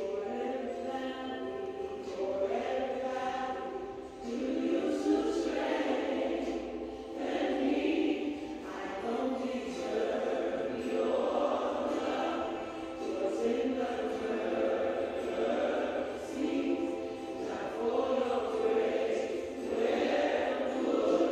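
Music: a choir singing, its voices swelling and easing in waves.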